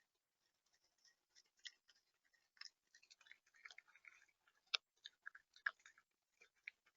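A bird pecking at seed on a feeder tray, heard up close: faint, irregular taps and crunches, with two sharper clicks about three-quarters of the way through.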